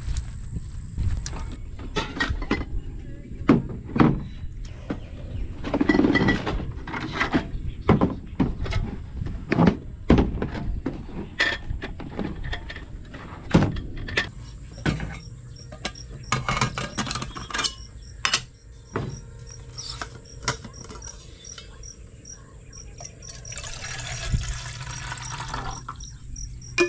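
Camp cookware being handled and set out: repeated metal knocks, clanks and clicks as a stove windscreen, a portable gas stove and a kettle are put down and fitted together. Near the end, water pours into the kettle for a second or two.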